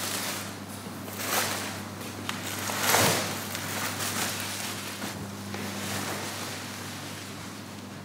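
Plastic sheeting rustling in several swells as it is pulled back and unwrapped from a body on a mortuary table, the loudest rustle about three seconds in, over a steady low hum.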